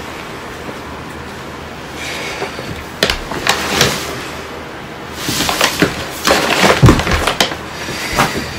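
A person moving about and kneeling on a wooden floor: a few sharp knocks, then a longer stretch of rustling and shuffling with a couple of heavy thumps as clothing is handled.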